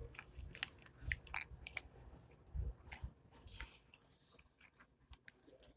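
Faint handling sounds of slime being worked with small plastic molds: scattered little clicks and soft squishes.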